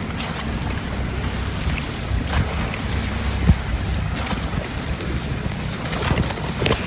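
Wind buffeting the microphone over water rushing past the hull and bamboo outrigger of a moving bangka, with a sharp knock about three and a half seconds in.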